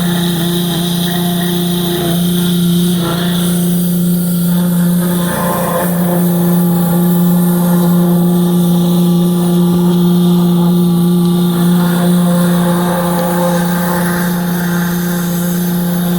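Pressure washer running steadily with a constant motor hum and the hiss of spray, washing a backhoe's valve body and hoses. The hum breaks briefly about two seconds in and again near five and a half seconds.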